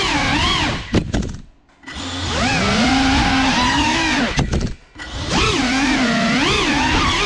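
GEPRC Cinelog 35 cinewhoop's brushless motors and propellers whining, the pitch rising and falling constantly with the throttle. Twice the sound cuts out almost to silence for about half a second just after a short knock, then the motors spool back up.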